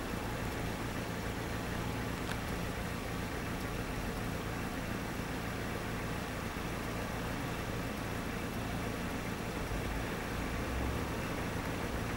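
A motor vehicle engine idling steadily, a constant low hum over even background noise.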